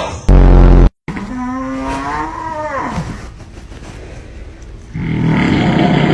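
Loud, exaggerated snoring. About a third of a second in comes a short, very loud deep blast. Then a long pitched snore rises and falls, and a rough, noisy snore begins about five seconds in.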